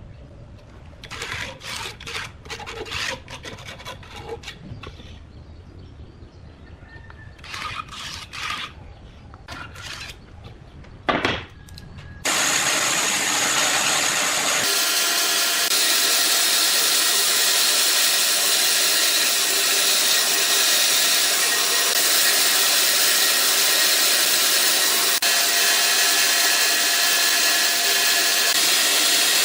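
Short scraping strokes on wood in bursts, with one sharp knock; then, about twelve seconds in, a power tool starts and runs steadily with a loud hiss.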